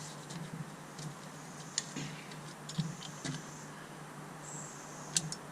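A few light, separate clicks and taps from parts being handled during reassembly, spaced irregularly, over a faint steady low hum.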